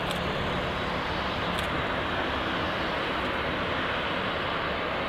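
Jet engines of a Boeing 787-8 airliner, Rolls-Royce Trent 1000 turbofans, running at low thrust as the aircraft rolls on the ground: a steady, even rushing noise with no rise or fall.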